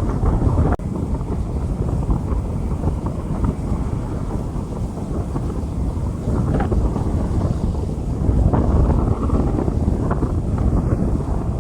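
Steady rain on a street, with wind buffeting the microphone and a continuous low rumble.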